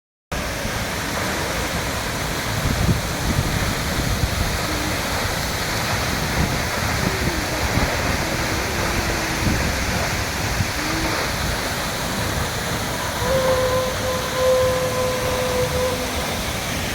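Steady rush of a waterfall, Materuni (Nambe) Falls, pouring without letup. A faint held tone rises above it for about three seconds near the end.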